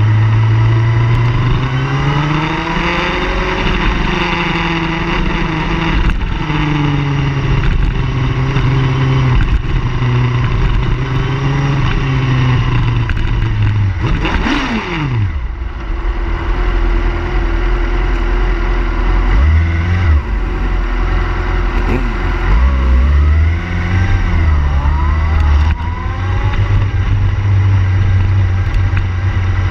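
Car engines running and being revved up and down. About halfway through, a car passes quickly with a sharply falling pitch.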